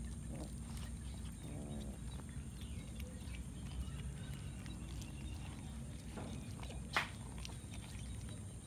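Cats eating fish together: faint scattered chewing clicks over a steady low background rumble. A short cat cry comes about a second and a half in, and one sharp click, the loudest sound, comes about seven seconds in.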